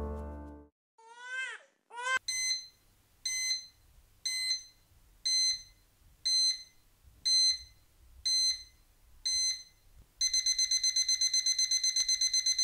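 Electronic digital alarm clock beeping: eight high beeps about a second apart, then about ten seconds in it switches to a fast, steady run of rapid beeps. Two short swooping tones come just before the first beep.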